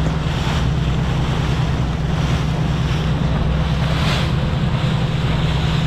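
A boat's engine drones steadily under way in lumpy seas, under wind buffeting the microphone and water rushing along the hull, with a few brief louder surges of spray.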